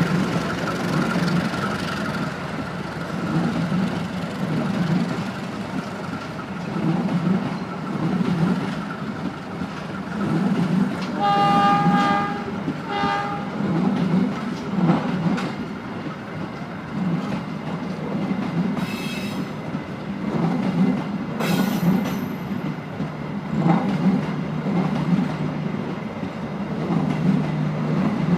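Diesel train running past with a rhythmic clatter of wheels over the rail joints. Two short horn blasts sound about eleven and thirteen seconds in.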